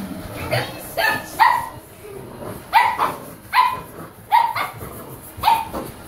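A young puppy barking at a stick vacuum being pushed across the floor: about eight short, high-pitched barks, some in quick pairs, with gaps of a second or so between them.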